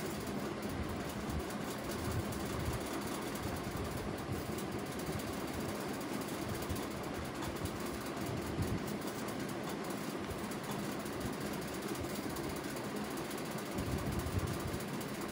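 A steady low mechanical hum with a continuous hiss and irregular soft low bumps.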